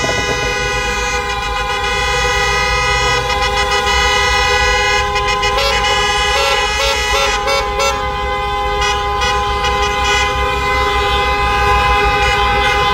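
Several car horns held down at once in celebratory honking, a loud steady blare, with a run of short toots joining in about midway.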